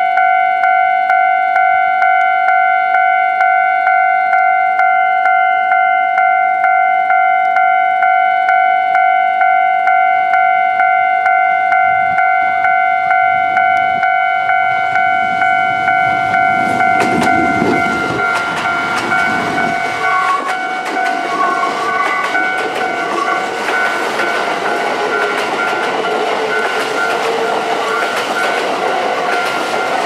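A Japanese level crossing's electronic warning bell rings steadily, pulsing about one and a half times a second. From about halfway through, a Kintetsu limited express train made up of a 30000 Series Vista EX with 22000 and 22600 Series cars runs past close by, its wheels rumbling and clattering over the rail joints while the bell keeps ringing.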